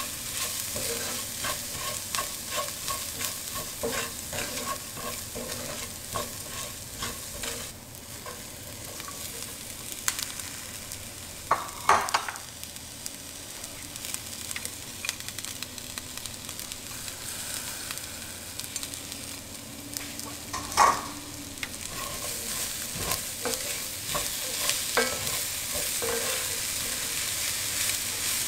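A wooden spoon stirring and scraping rice and diced onion as they sizzle in a cast-iron pan. Two louder moments, about twelve and twenty-one seconds in, come as black beans and then corn are tipped into the pan.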